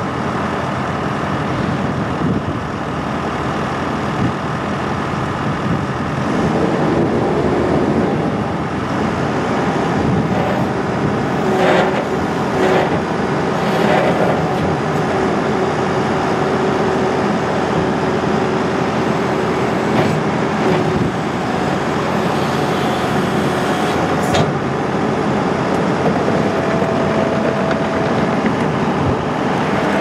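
New Holland C232 compact track loader's diesel engine running, rising in revs about six seconds in. A steady hydraulic whine runs while the loader arms raise and curl the bucket, and a few sharp clanks come from the loader working.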